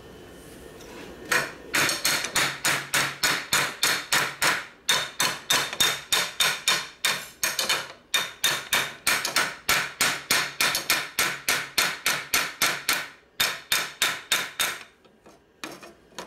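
A hammer striking the steel clutch shell of a 1979 Harley-Davidson shovelhead, held on a bar in a vise: a long run of quick, ringing metal-on-metal blows, about four a second, with two short breaks, stopping near the end.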